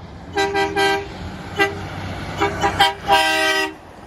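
Garbage truck's small air horn honked in a series of short single-tone toots: two quick blasts, a brief one, a rapid cluster of three, then a longer blast of about half a second near the end. The truck's engine rumbles underneath.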